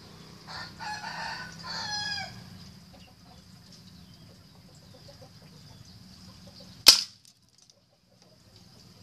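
A single sharp crack of a PCP air rifle shot about seven seconds in, the loudest sound here; the pellet strikes the plywood target, which shifts. Earlier, about half a second in, a chicken calls twice in quick succession.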